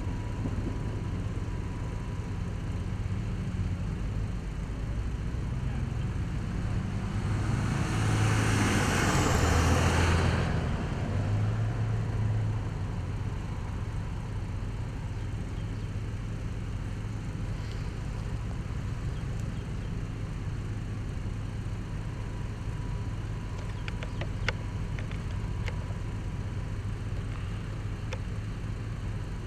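A vehicle passing close by, its tyre and road noise swelling and then fading over a few seconds, with a falling sweep as it goes past, above a steady low rumble. A few faint clicks near the end.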